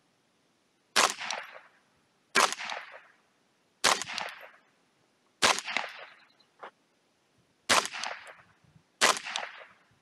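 Ruger 10/22 .22 rimfire semi-automatic rifle firing six single shots, one about every second and a half, each crack trailing off with a short echo.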